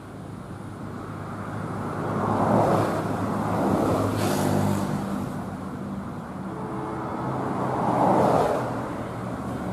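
Road vehicles passing close by, two of them sweeping past about two and a half and eight seconds in, over the steady low engine hum of an approaching diesel locomotive.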